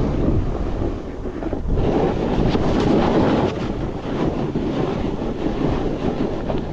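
Skis sliding and scraping over snow at speed down a steep slope, with wind buffeting the microphone; a continuous rumbling noise that swells and eases with the turns.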